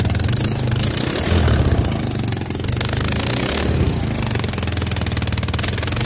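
Small scooter engine running steadily at idle, with a couple of slight rises in level, after a new throttle cable has been fitted to the carburettor.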